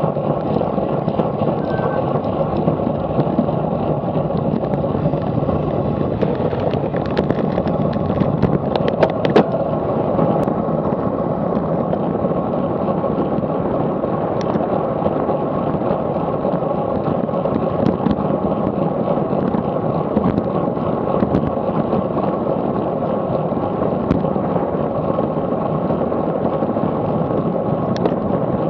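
Steady rush of wind on the microphone of a bike-mounted action camera at racing speed, mixed with tyre and road noise. A few sharp clicks sound about seven to nine seconds in.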